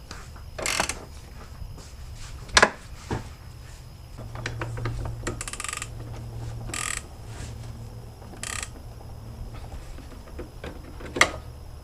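Ratchet wrench clicking in short runs as a loose bolt is tightened, with a few sharp metallic clanks of the tools. The loose bolt is what the mechanic blames for the car's popping noise.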